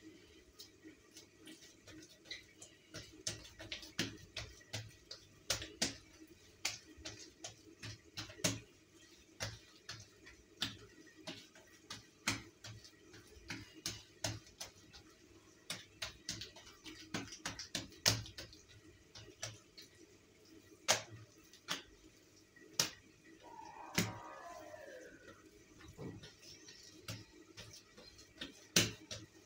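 Irregular soft slaps and taps of hand-worked yeast dough on a tiled counter, as dough balls are picked up, stretched between the hands and patted down. One brief falling squeak late on.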